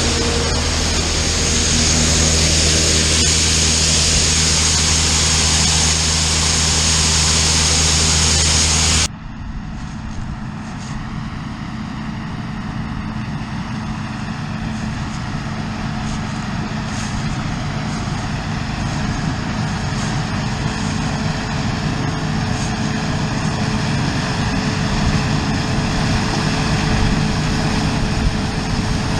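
Heavy farm machinery engines running during corn harvest: a loud steady drone with a strong low hum, then, after a cut about nine seconds in, a quieter engine drone that slowly grows louder.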